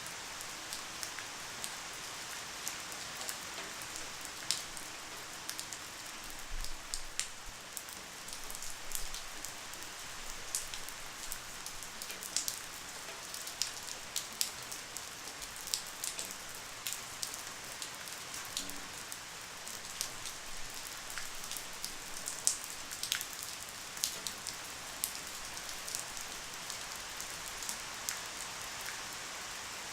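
Light rain falling steadily, a soft hiss with many scattered individual drops tapping on a surface.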